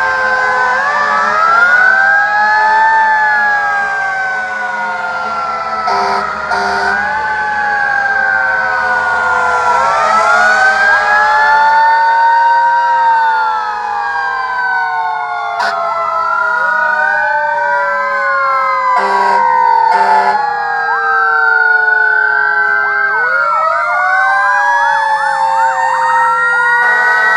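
Several fire engine and ambulance sirens wailing at once, their rising and falling pitches overlapping, over the low rumble of the trucks' engines. Two pairs of short horn blasts cut through, about six seconds in and again about twenty seconds in.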